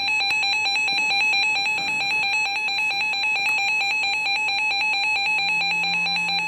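Weather radio receiver's alert alarm: a shrill electronic beep tone pulsing rapidly and evenly, sounding because a warning (a Special Marine Warning) has been received.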